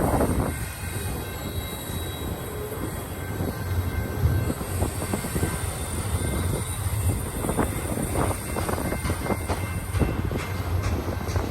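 Double-stack intermodal freight train rolling past: a steady low rumble of wheels on rail, with irregular clicks as wheels cross the rail joints and a thin, high steady squeal.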